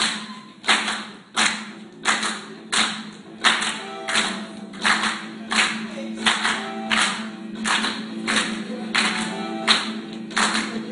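A group clapping a steady beat, about three claps every two seconds, over a medley's music with a held low note; sung or played notes join about four seconds in.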